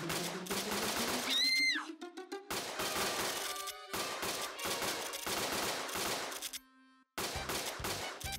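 Cartoon gunfire sound effects: a rapid, continuous volley of shots over a rising tone. Near the end the shots stop for a brief silence and a pulsing musical beat starts.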